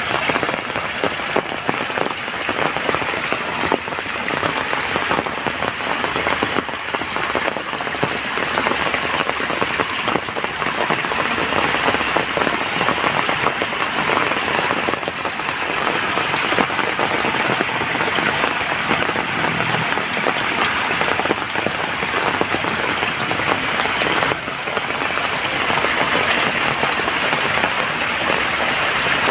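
Steady rain falling: a dense, even hiss of countless drops striking the ground and surfaces.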